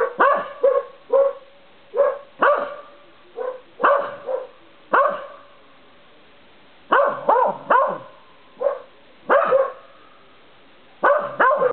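A Welsh corgi barking repeatedly in short runs of two or three sharp barks, each dropping in pitch, with pauses of a second or two between runs.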